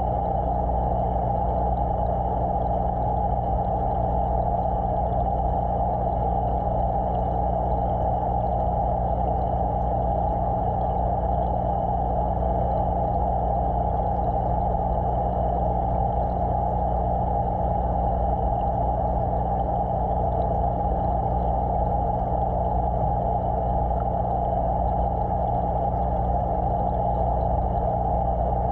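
Steady electric hum of an aquarium pump motor with a constant rush of moving water, picked up by a camera submerged in the tank.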